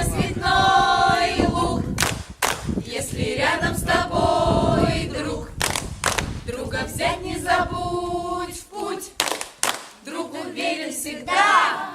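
A group of voices singing a song together, in phrases of a second or so, with sharp knocks scattered throughout.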